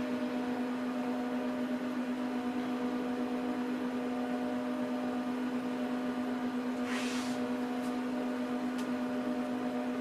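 Dell PowerEdge R710 server running with a steady hum and whine from its cooling fans. A brief soft rush of noise comes about seven seconds in.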